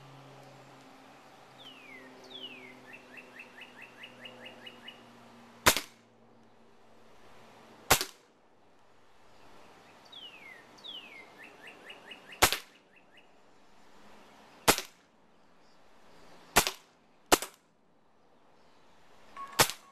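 Walther PPK/S CO2 blowback air pistol firing seven sharp shots, spaced about one to four seconds apart, with two coming under a second apart near the end.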